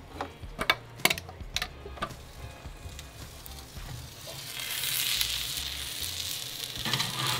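A few sharp clicks in the first two seconds, then food sizzling on the hot grate of a Kamado Joe ceramic charcoal grill as the dome is opened, the sizzle swelling from about four seconds in.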